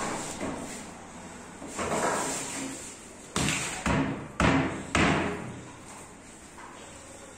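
Four sharp knocks about half a second apart, around the middle, as a wood-laminate cabinet is handled and shifted on a tiled floor while plastic legs are fitted to its base.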